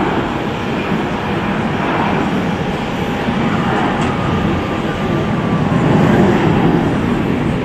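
Jet engines of an Airbus A320-family airliner at takeoff power: a steady roar with a faint, slightly falling whine, growing loudest around six seconds in as the jet lifts off.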